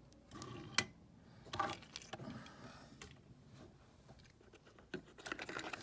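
Faint clicks and light knocks of metal die-cast toy trucks being handled on a tabletop: one sharp click about a second in, and a cluster of small clicks near the end.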